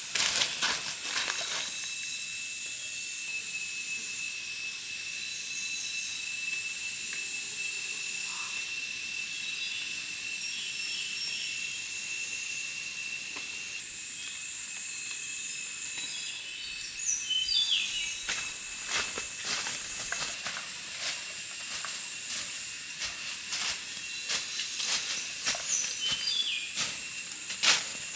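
Steady high-pitched insect drone with a constant hiss and thin steady tones, with a few short falling whistles near the middle and near the end, and scattered light clicks and knocks in the second half.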